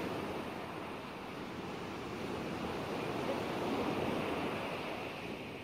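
Ocean waves washing steadily, a soft surf sound that swells a little in the middle and eases off near the end.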